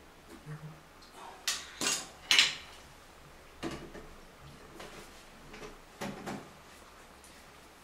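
An adjustable wrench and other metal hand tools clinking and knocking against a chrome toilet flush valve and its fittings while it is tightened: about six sharp metallic clinks, the loudest about two and a half seconds in.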